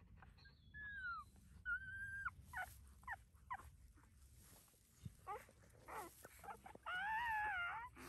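High-pitched dog whines and squeals during whelping: a falling squeal and a level one in the first two seconds, short yelps through the middle, then one long wavering whine near the end, over a low steady rumble.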